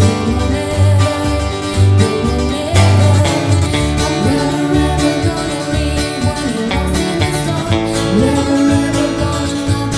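A woman singing the lead vocal of a country-pop song over guitar accompaniment, with a low pulsing beat.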